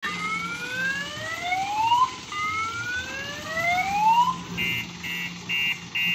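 Electronic siren of an odong-odong mini tourist train: two rising whoops, each climbing for about two seconds, then a short electronic beep repeated about twice a second.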